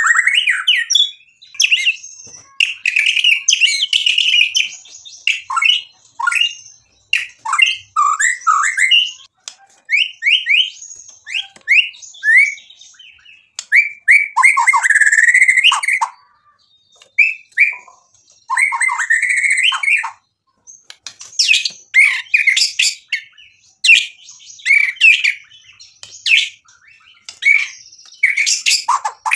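Male white-rumped shama (murai batu) singing: a string of short, varied, loud phrases of whistles and fast rattling note runs, with brief pauses between them.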